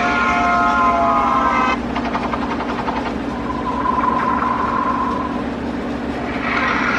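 Loud prank sound effects played back in a row: a multi-note horn-like blast lasting until about two seconds in, then a noisy rumble with a steady tone in the middle, then gliding notes like a siren starting near the end.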